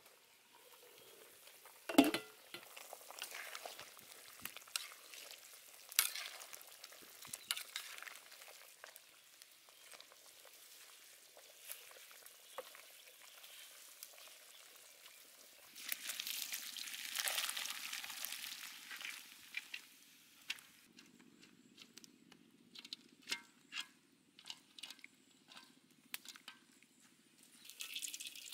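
A wok of duck pieces cooking in broth over the fire, crackling and bubbling. A sharp metal clank, the loudest sound, comes about two seconds in as the aluminium lid comes off. Just before the end, oil starts pouring into an empty wok with a hissing trickle.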